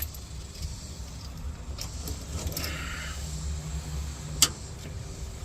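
Small metallic clinks and handling noises of tools and parts, with one sharp click about four and a half seconds in, over a low steady hum.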